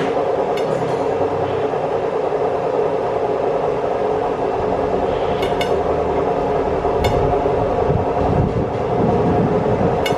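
Washing machine running: a steady mechanical drone, with a few light clicks over it.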